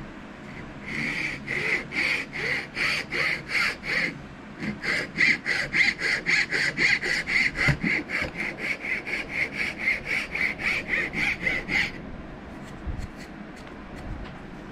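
A cabinet maker's file rasping back and forth across a knife handle held in a vise, cutting its grip grooves. The strokes come about three a second, with a short pause about four seconds in, and stop about twelve seconds in.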